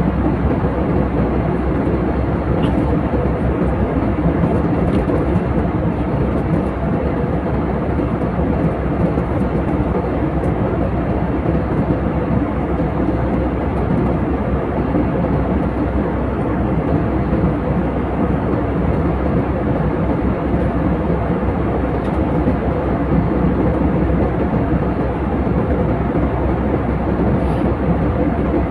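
Steady, loud roar of a passenger jet's engines and rushing air, heard from inside the cabin.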